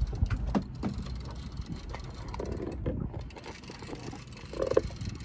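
A fishing reel being cranked as a hooked lake trout is brought up, with scattered clicks and knocks over a steady low rumble of the boat on the water.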